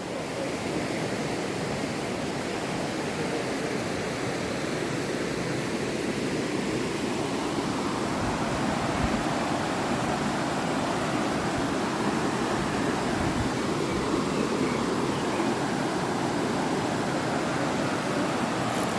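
A river running over rocks: a steady rush of flowing water.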